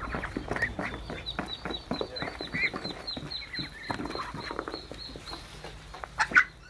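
Flock of Muscovy ducks feeding on mashed overripe bananas: a dense patter of bill clicks and pecks, with short soft calls. One loud sharp sound comes about six seconds in.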